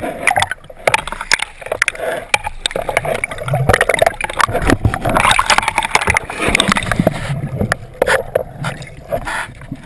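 Shallow seawater sloshing and splashing at the surface, heard from right at the waterline, full of irregular sharp clicks and pops of bubbles and small waves.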